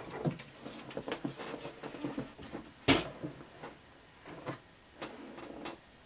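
The plastic slide-on extension table of a Bernina B 780 sewing machine being unclipped, lifted off and set aside: a few light clicks and knocks, the sharpest about three seconds in.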